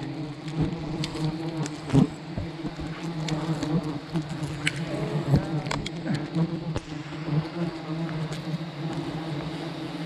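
A mass of honeybees buzzing steadily close around the nest, with single bees whining past in rising and falling glides. Scattered sharp knocks and ticks come through the buzz, the loudest about two seconds in.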